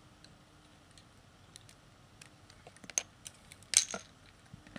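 Plastic Lego bricks clicking and clattering as they are handled. A few scattered sharp clicks come after a quiet start, the loudest in the second half.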